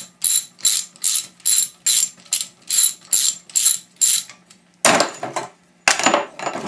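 Hand ratchet being worked back and forth to back out a screw on an old cement mixer motor, its pawl clicking in a steady rhythm of about two and a half strokes a second. The clicking stops near the end and gives way to two louder, rougher clattering sounds.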